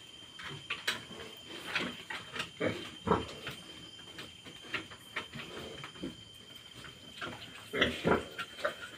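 Pigs grunting: a newly farrowed sow and her suckling newborn piglets. The grunts come as short, irregular sounds, with louder ones about three seconds in and again near the end.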